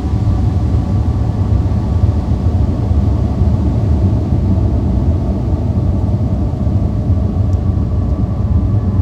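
A steady low rumble with a few faint sustained tones held above it, unchanging throughout.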